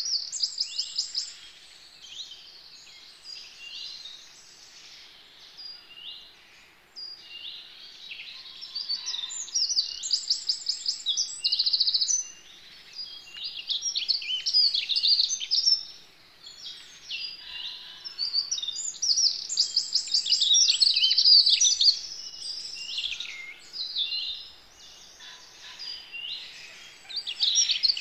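Several songbirds singing in woodland, their phrases of rapid trills and chirps overlapping and coming in bursts every few seconds.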